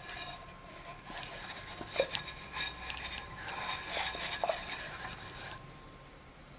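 A metal scrubber scouring a small stainless steel cup, a rasping scrub with a few light clicks of metal, cleaning off greasy oil residue. The scrubbing stops about five and a half seconds in.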